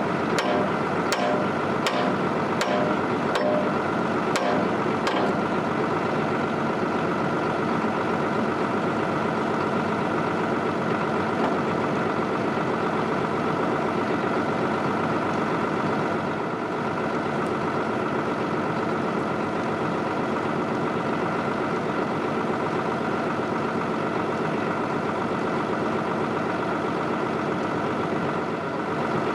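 Link-Belt 2800 excavator's diesel engine running steadily. In the first five seconds a regular series of sharp clicks, a little more than one a second, sounds over it.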